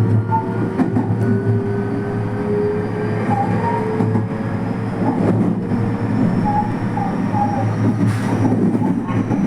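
223 series electric train running at speed, heard from inside the front car: a steady rumble from the wheels and rails, with a faint motor whine rising slowly in pitch as it picks up speed.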